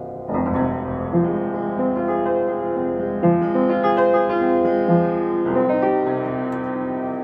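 Upright piano played solo in a free improvisation, with single notes and chords ringing over one another. The notes are drawn from the C minor and F minor chords (C, E-flat, G, F, A-flat), combined in any order.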